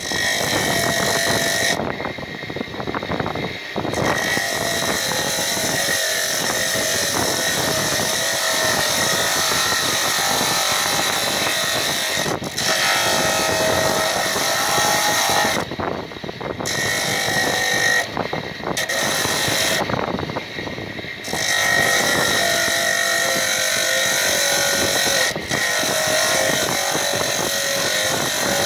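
Electric motor spinning a sanding disc while a block of rock salt is pressed against it: a steady grinding hiss with a whine that wavers as the pressure changes. The hiss eases off briefly a few times.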